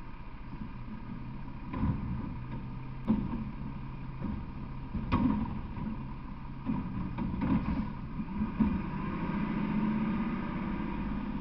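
Garbage truck engine running as it moves slowly away, with a series of irregular clanks and knocks from the truck's body and equipment.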